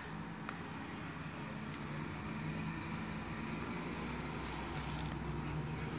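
Steady low background hum with a few faint ticks; a deeper rumble swells in from about two-thirds of the way through.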